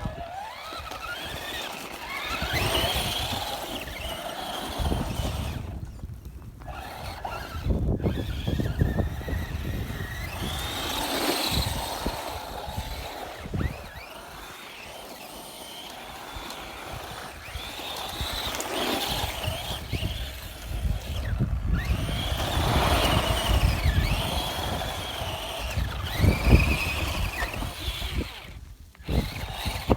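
Traxxas Rustler 4x4 RC truck's brushed electric motor and drivetrain whining, the pitch rising and falling again and again as the throttle is worked, with a low rumble underneath that comes and goes.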